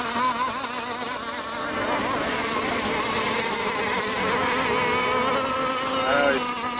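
Several radio-controlled racing boats running on the water together, their overlapping high-pitched motor whines wavering up and down in pitch as they circle.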